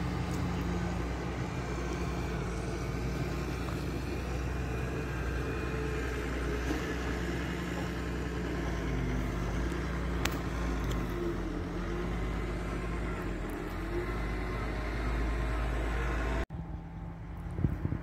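Motorcycle engine running steadily, a low rumble with a hum of a few deep tones. The sound cuts off abruptly about two seconds before the end.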